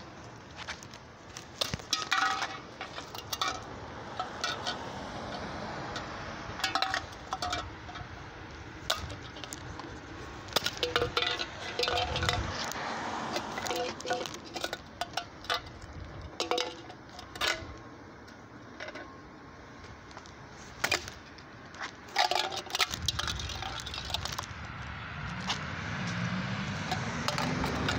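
An aluminium drink can kicked along a concrete sidewalk, giving a sharp metallic clink and clatter with each kick and rattling as it skids. Over the last few seconds a car's engine rises as it approaches.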